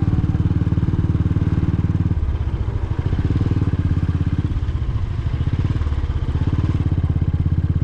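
A vehicle engine running steadily on the move, its note easing off briefly about two seconds in and again about five seconds in.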